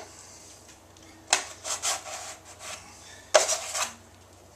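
Drywall knife scraping joint compound: two spells of rough scraping, the first about a second in and the second about three seconds in.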